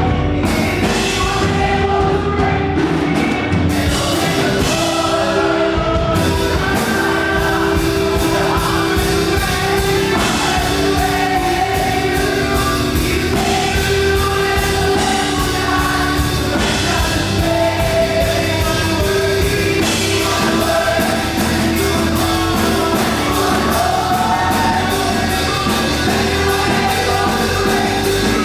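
Live up-tempo gospel worship song: a group of voices singing together over a band with drums.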